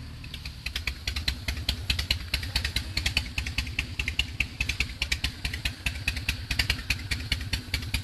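Motorcycle engine idling with a pulsing exhaust beat and sharp mechanical clattering ticks over it, growing louder shortly after the start.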